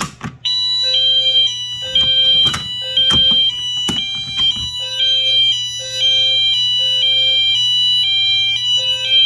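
Wheelock MT multitone fire alarm horns sounding the hi-lo tone, switching between a high and a low pitch every half second. The tone starts about half a second in, and a few knocks come over the first few seconds.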